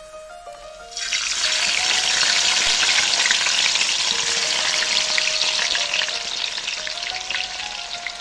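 Chopped onion frying in hot sunflower oil in a pot: a loud sizzle that starts abruptly about a second in and slowly eases. Soft background music plays underneath.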